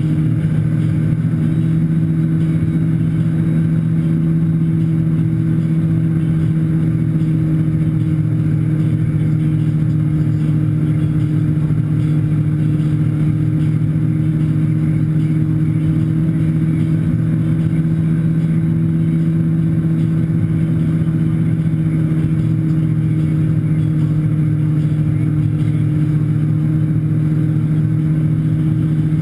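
Motorboat engine running at a steady towing speed, a constant low drone, with the prop wash and wake churning behind the boat.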